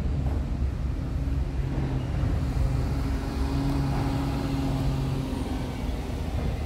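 Scania R tractor unit's diesel engine idling steadily.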